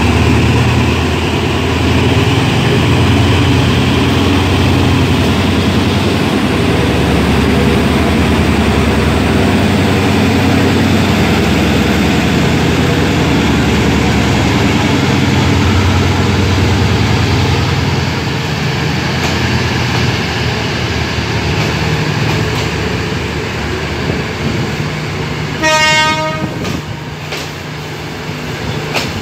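SRT Hitachi diesel locomotive's engine running as it pulls a passenger train out past. The drone eases after about 18 s, when the coaches are rolling by. A short horn blast sounds a few seconds before the end.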